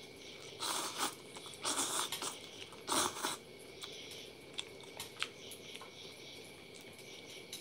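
A man slurping instant cup noodles three times in quick succession, then chewing, with a few light clicks of wooden chopsticks against the cup.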